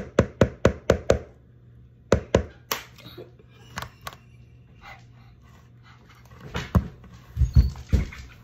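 Egg tapped repeatedly against the rim of a plastic mixing bowl to crack it: a quick run of about six sharp taps in the first second, then scattered single taps. Near the end come a few dull thumps.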